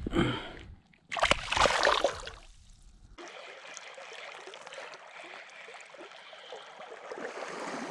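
River current running over rocks, a steady even rushing hiss. In the first few seconds a louder burst of rumbling noise covers it, then cuts off abruptly about three seconds in.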